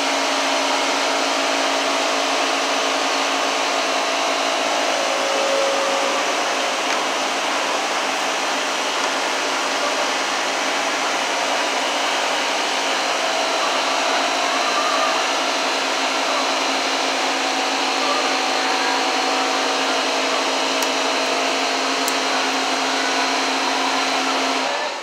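Steady, loud whirring of a running motor with a constant hum, unchanging until it cuts off suddenly near the end.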